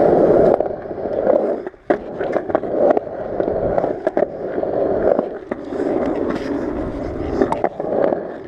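Skateboard wheels rolling over concrete, a steady rumble broken by sharp clicks and clacks from the board and the pavement joints. The rolling cuts out briefly just under two seconds in and comes back with a sharp clack.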